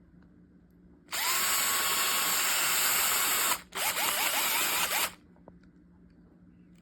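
DEKOPRO 12 V cordless drill/driver running twice: first a steady run of about two and a half seconds, then after a brief stop a shorter run in which the motor speeds up several times in quick succession.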